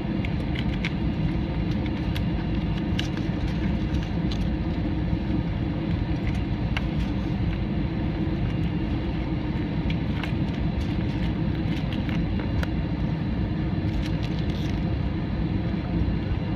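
Steady rumble inside a jet airliner cabin as the aircraft rolls on the ground before takeoff, with its engines running. Many small rattles and clicks from the cabin fittings come through it.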